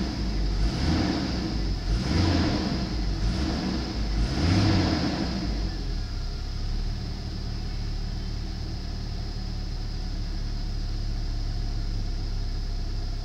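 2001 GMC Sonoma pickup engine revved three times in quick blips, then settling to a steady idle at about 1000 rpm. It runs smoothly and is judged to sound good.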